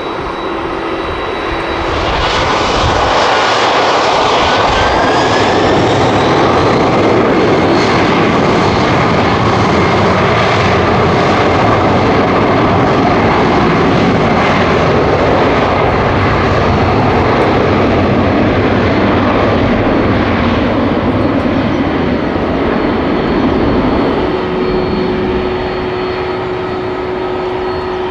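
Boeing 767-300ER's twin jet engines at takeoff power: a loud, steady jet roar that swells about two seconds in, holds, and eases a little near the end.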